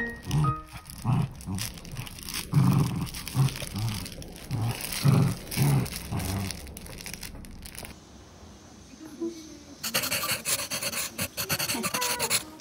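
Small dog play-growling and panting in short bursts, about two a second, while tugging a plush toy. A stretch of scratchy rustling noise comes near the end.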